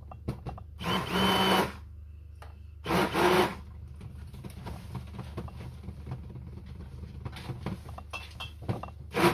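Handheld stick blender run in short pulses in a small tub of soap batter, mixing in neon green pigment: two brief bursts about a second and three seconds in, and a third starting right at the end. Between the bursts come light clicks and knocks.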